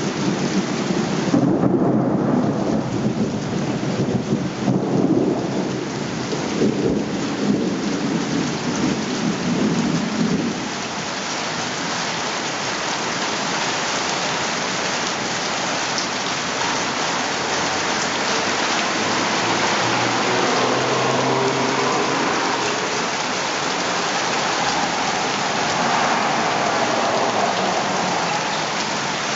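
Thunder rumbling over heavy rain, the rumble dying away about ten seconds in, leaving heavy rain pouring steadily.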